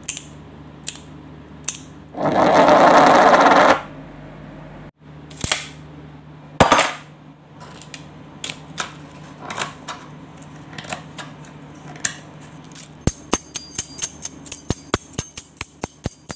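A string of short, unrelated sound effects: a few sharp clicks, a loud burst of noise lasting about a second and a half, several knocks and scattered clicks, then a fast run of clicks with bright metallic ringing near the end.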